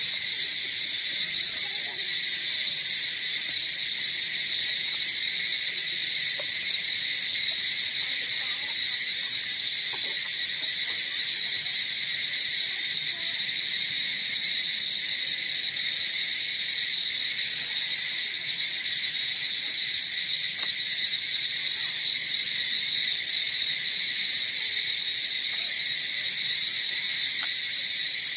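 Steady, high-pitched chorus of forest insects, unbroken and even throughout.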